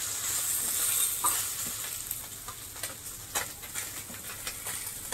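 Fish frying in hot oil, a steady sizzle that slowly grows quieter, with scattered light clicks and scrapes of a spatula as the fried fish are lifted out of the pan.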